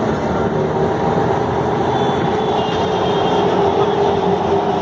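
Electric tram running along its street track: a steady rolling rumble with a steady whine over it.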